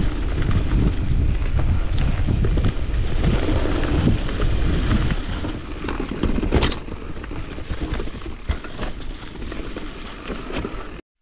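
Mountain bike riding down a rough trail, heard from an action camera: wind on the microphone over a rumble and rattle from the bike, with a sharp knock about six and a half seconds in. The sound cuts off suddenly just before the end.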